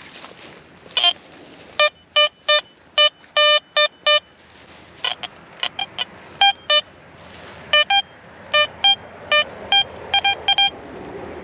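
Metal detector target tones: a string of short electronic beeps, lower-pitched in the first half and higher-pitched in the second, some coming in quick pairs. They signal a buried metal target.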